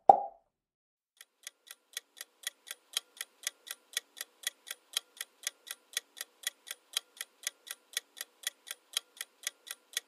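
Countdown-timer sound effect: a clock ticking evenly, about four ticks a second, fading in about a second in. A short pop sounds right at the start as an answer option appears on screen.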